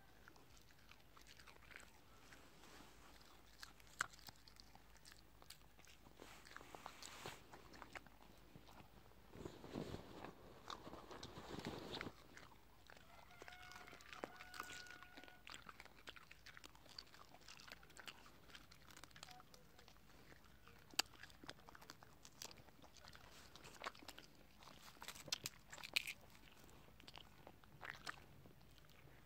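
Dog chewing dry carob pods: faint scattered crunches and clicks, with a denser stretch of crunching about ten seconds in.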